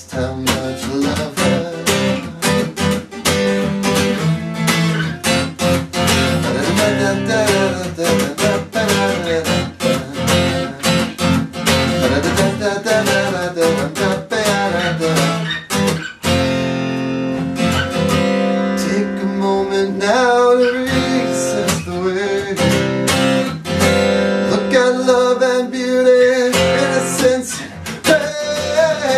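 Acoustic guitar played as an instrumental break between verses. It is strummed steadily and fast at first, then after about sixteen seconds it eases into sparser strokes with chords left ringing.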